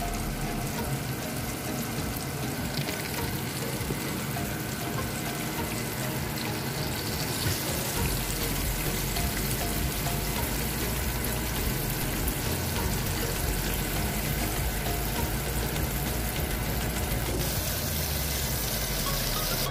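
Hot oil sizzling and crackling steadily around a flour-dredged fish frying in a non-stick pan, with background music playing over it.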